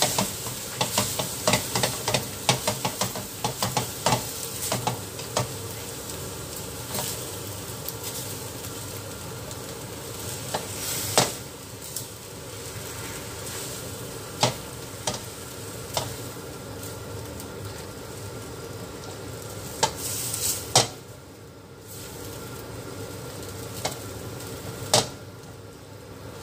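Spaghetti with chicken and mushrooms sizzling in a metal wok while a spatula stirs and tosses it. There is rapid scraping and tapping of the spatula against the pan for the first several seconds, then occasional louder single knocks over the steady sizzle.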